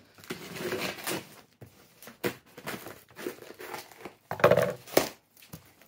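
Cardboard box and its shiny wrapping being pulled and torn open by hand: crinkling and tearing in irregular bursts with sharp clicks, loudest about four and a half seconds in.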